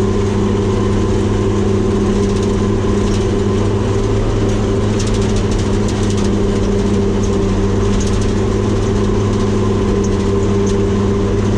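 New Holland baler's engine running steadily at a constant speed while the machine drives along the road in third gear, heard from the cab.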